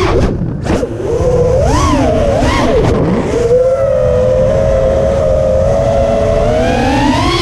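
FPV quadcopter's electric motors whining, the pitch swinging with the throttle: two quick swells in the first few seconds, then a steady tone that climbs near the end, over a low rushing noise.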